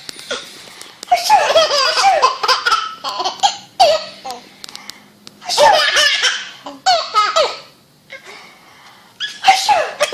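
Baby laughing in bouts of high-pitched laughs that fall in pitch, with short pauses between: a long bout about a second in, two short ones in the middle, and another near the end.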